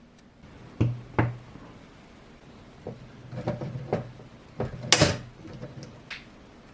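Hard 3D-printed plastic parts being handled, knocking and clacking together in a string of light knocks, with the loudest clack about five seconds in.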